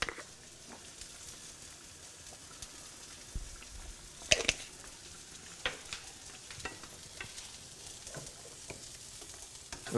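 Sliced onions frying in olive oil in a skillet, a steady sizzle. A few sharp knocks and clicks of kitchen utensils break in, the loudest about four seconds in.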